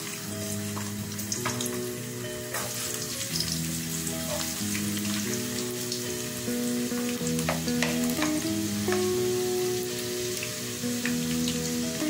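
Chopped garlic sizzling in hot oil in a nonstick pan, with scattered sharp ticks of spattering and a wooden spatula stirring. Soft background music with held notes plays underneath.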